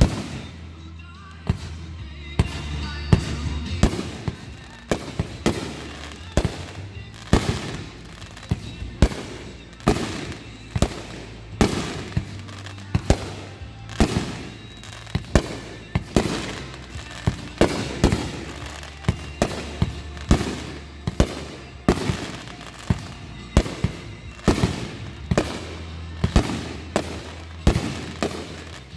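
Fireworks shells bursting in a quick succession of sharp bangs, about one every second or so, over music played for the choreographed show.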